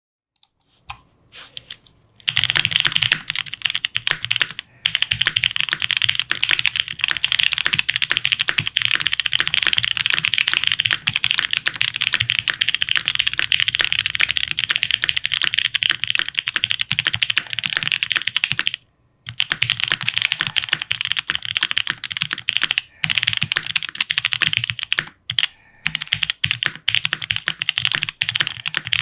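Fast typing on a plateless 7V by Gok mechanical keyboard with lubed Black Cherry Pie linear switches and GMK Bushido keycaps: a few light taps, then a dense run of key clacks from about two seconds in. The typing breaks off briefly about two-thirds of the way through and pauses twice more near the end.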